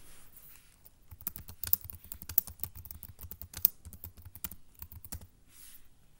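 Computer keyboard typing: a quick run of keystrokes starting about a second in and stopping about a second before the end.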